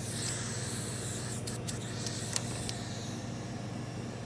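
A steady low machine hum, with a high hiss in the first three seconds and a few sharp clicks in the middle.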